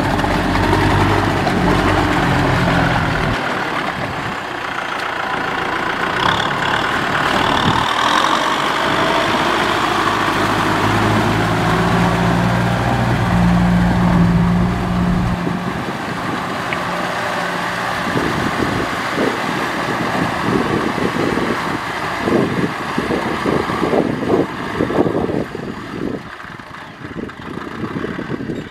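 Kubota M6040SU tractor's diesel engine running under load while its rotary tiller churns through flooded paddy mud, the engine pitch shifting in the first half. From about two-thirds of the way in, irregular knocks and clatter join the engine.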